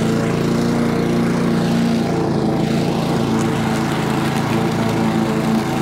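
Husqvarna push lawn mower's Honda engine running steadily at a fast speed, a little quick by the owner's reckoning, as the mower is pushed across the lawn mulching leaves.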